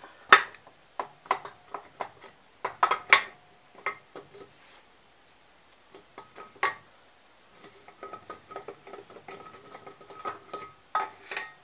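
Metal clinks and knocks as a crankshaft is worked out through the main bearing of an air-cooled twin-cylinder engine block, some of them leaving a short metallic ring. The loudest knock comes about half a second in, and a run of lighter clinks follows near the end.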